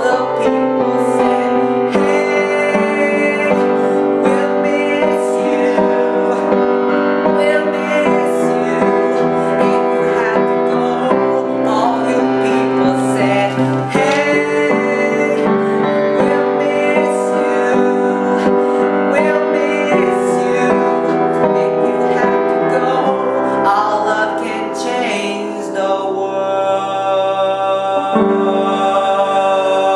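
Music from a piano-led pop-rock ballad, playing without any clear sung words. It thins out about three-quarters of the way through and settles into held chords near the end.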